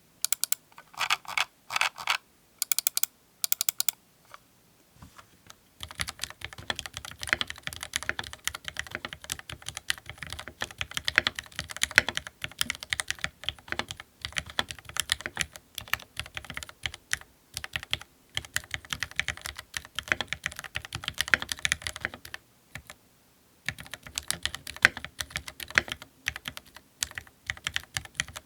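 Mechanical keyboard with linear Gateron Milky Yellow Pro switches and ABS GMK keycaps being typed on. A few short bursts of keystrokes come first, then a long run of steady, fast typing with one brief pause, each key giving a sharp clack.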